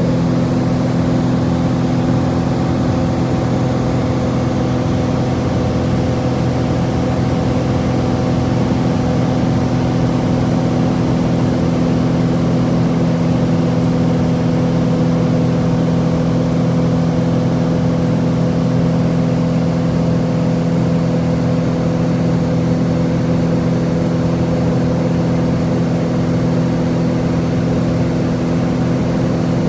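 Small high-wing private plane's piston engine and propeller in level flight, heard inside the cabin: a loud, steady drone that holds one pitch throughout.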